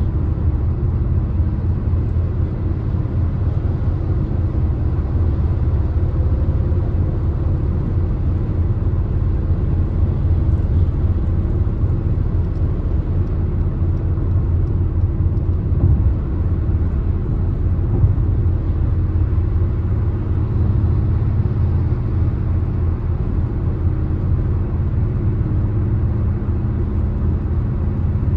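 Car cruising at highway speed: a steady, low rumble of road, tyre and engine noise.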